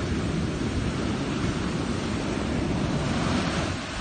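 Small ocean waves breaking and washing up the beach in a steady surf wash, with wind buffeting the microphone and adding a low rumble.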